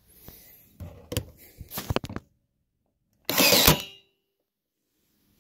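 Cordless NEU Master staple gun firing once, a loud snap about three and a half seconds in, after a few lighter clicks of handling. No nail comes out: the gun fires but fails to drive a nail.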